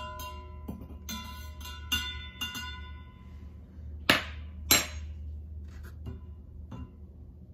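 Background music of plucked notes that stops about three seconds in, followed by two sharp clinking knocks about half a second apart.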